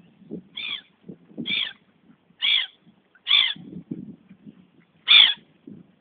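Waterbirds calling: five short calls, each falling in pitch, a second or so apart, over faint low noise.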